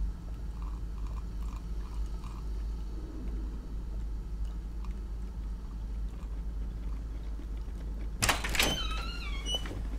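Steady low hum of room tone. About eight seconds in, a sudden clatter of sharp clicks, followed by a few short, wavering squeaks that fall in pitch.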